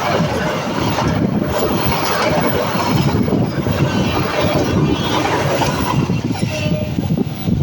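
Passenger train going by close and loud, a steady rumble of wheels and carriages, with wind buffeting the microphone.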